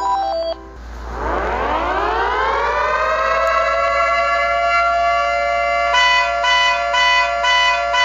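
A short, light electronic melody cuts off about half a second in. A siren then winds up in pitch over about three seconds and holds a steady wail, and from about six seconds a car horn joins it, honking in even pulses about twice a second.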